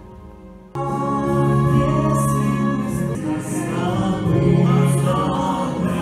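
Music with a choir singing. A soft held chord gives way to a sudden loud full entry just under a second in.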